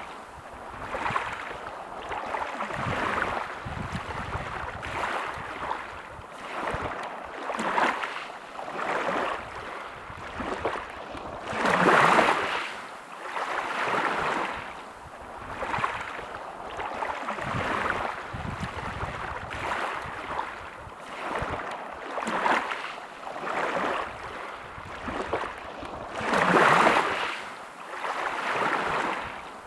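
Small sea waves breaking and washing on a beach, a soft surge every second or two, with two larger waves breaking about twelve seconds in and near the end.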